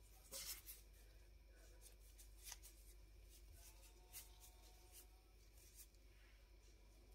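Near silence: faint rustles of thin plastic food-prep gloves handling soft slices of steamed loaf, a few brief ones, the loudest about half a second in, over a low steady room hum.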